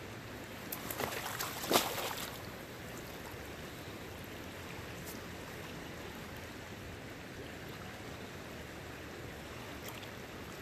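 Steady rush of a fast-flowing creek, with a short burst of splashing about a second or two in as a large trout is lowered into the water by hand for release.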